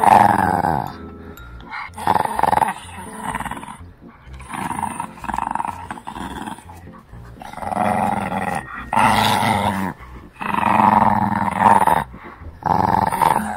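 Shih Tzu puppy growling in repeated bouts of a second or two while tugging on a braided rope toy. This is play growling during tug-of-war, not real aggression.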